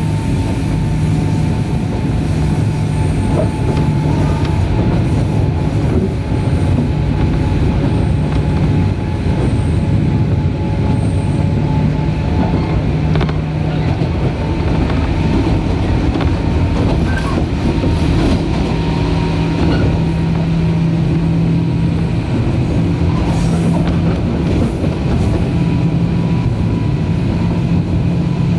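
Running sound inside the motor car of a JR 103 series 1500 subseries electric train (MoHa 102-1512) under way: a steady traction-motor and gear hum over the rumble of wheels on rail, with occasional faint clicks at rail joints.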